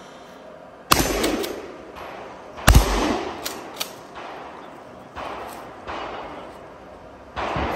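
Mossberg 500 pump-action shotgun firing on a match stage: two loud shots about two seconds apart, each trailing off in an echo, followed by several quieter sharp cracks and clanks.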